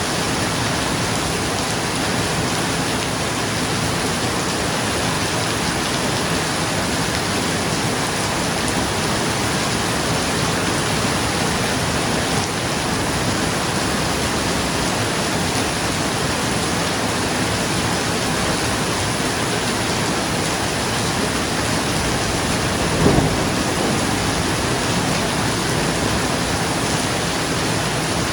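Steady heavy rain drumming on a roof. About three quarters of the way through comes one brief, low crack of thunder.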